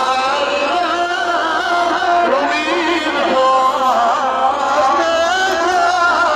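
Wedding zaffa chant: a munshid singing an ornamented melody with many small bends in pitch, with no clear drumming.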